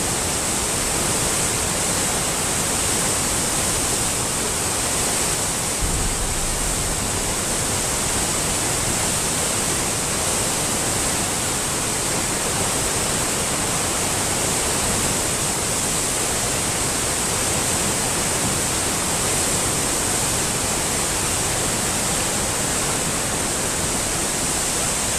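A river in flood, brown floodwater churning and rushing past a bridge abutment: a steady, loud rushing of water that does not let up.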